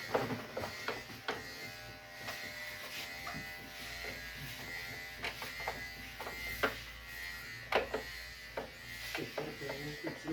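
Split AC indoor unit running with a steady buzzing hum and irregular clicking and knocking from inside. The technician traces the noise to the blower wheel touching part of the cooling coil assembly.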